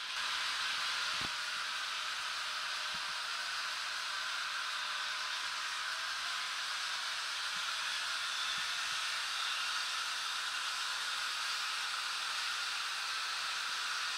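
Model railway trains running on the layout: a steady whirring hiss of small electric motors and wheels on the track, with a few faint clicks.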